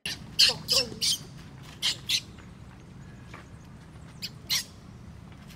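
Baby macaque giving short, shrill squeals, several in quick succession in the first two seconds and two more near the end, some dropping in pitch.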